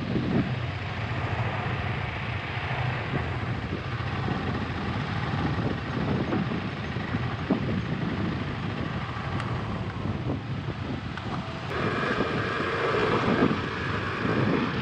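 Motorcycle engines running at low speed, among them the single-cylinder engine of a KTM 250 Adventure. About twelve seconds in the sound grows louder as the bikes move off along the dirt track.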